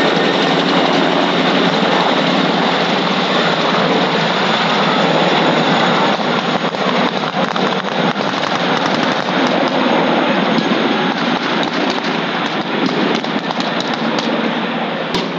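UH-60 Black Hawk helicopter flying past close by, its main rotor beating in a fast, rapid chop over a dense rush of noise. The chop turns sharper and more distinct about six seconds in.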